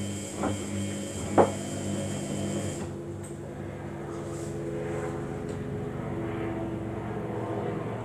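Samsung front-loading washing machine running a wash: a steady motor hum as the drum turns the wet load, with a sharp knock about a second and a half in. About three seconds in the high hiss drops away and the motor's note changes.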